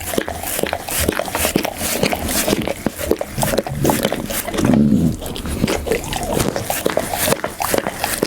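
Pit bull chewing food close to the microphone: a steady run of sharp crunches and mouth clicks, several a second, with a lower, longer sound about five seconds in.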